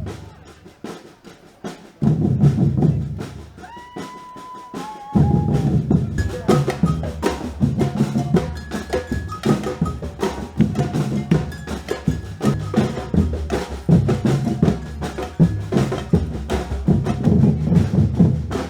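Batucada drum band: two loud drum hits that die away, a whistle call about four seconds in, then the whole band comes in with a steady rhythm of deep bass drums, snares and bright bell or wood-block strokes.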